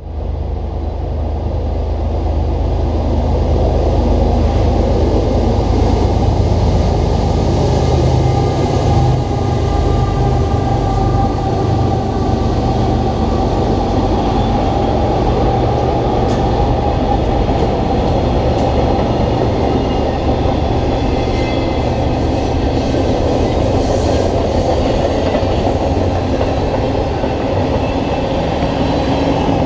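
Freight train passing at close range behind a multi-unit consist of GE and EMD diesel-electric locomotives. The locomotives' low engine drone is strongest over the first several seconds. It gives way to steady wheel-on-rail noise with scattered clicks as the freight cars roll by.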